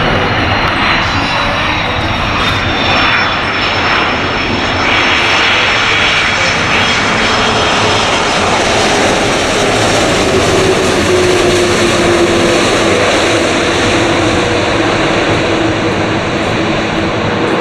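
Twin-engine Airbus A330 jet airliner rolling out down the runway just after touchdown, its engines making a loud, steady roar. About ten seconds in, a tone in the roar slides lower in pitch as the engines wind down.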